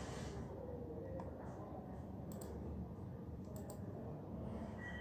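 Computer keyboard keys clicking sparsely, a few isolated keystrokes rather than steady typing, over a steady low room hum.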